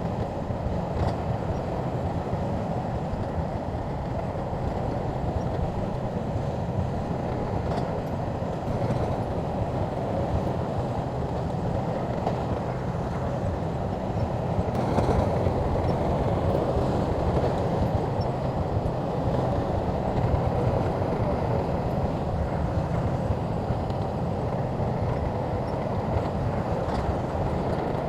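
SHANTUI bulldozer's diesel engine running steadily as it works, getting somewhat louder about halfway through.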